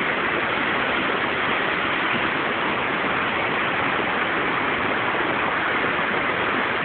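Waterfall rushing, a loud, steady, unbroken noise of falling white water.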